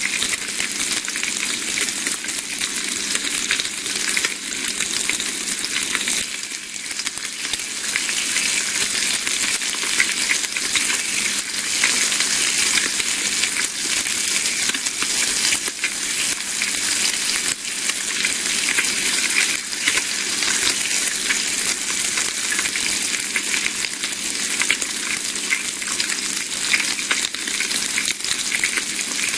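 Bacon sizzling in a frying pan: a steady dense hiss full of fine spitting crackles, easing off briefly about six seconds in.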